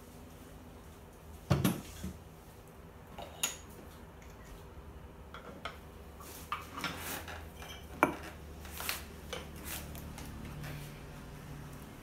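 Small Yixing clay teapots and porcelain tea cups clinking and knocking against each other and the tea tray as they are handled, over a low steady hum. A sharp knock about one and a half seconds in is the loudest, with scattered lighter clinks after it.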